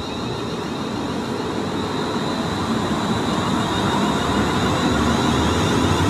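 London Midland Class 350 Desiro electric multiple unit moving slowly past. It gives a steady mechanical hum with wheel and rail noise and a steady high tone above it, growing gradually louder.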